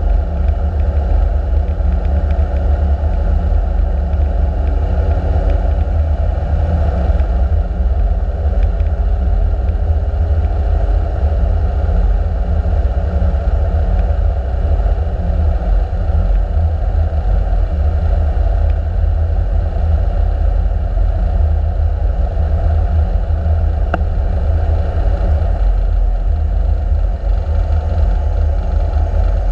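Light-sport aircraft's engine and propeller running, with wind noise inside the cabin on approach and landing. The engine note changes about seven seconds in.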